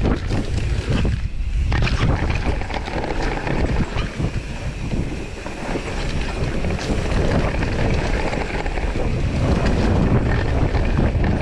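Wind rushing over the camera microphone as a mountain bike descends a dirt trail at speed, with the tyres rolling over the dirt and the bike rattling over bumps.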